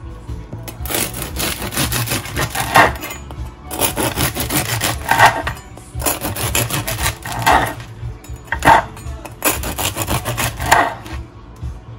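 A long bread knife sawing through a crusty loaf on a wooden cutting board, in about five bursts of quick back-and-forth rasping strokes, one burst per slice.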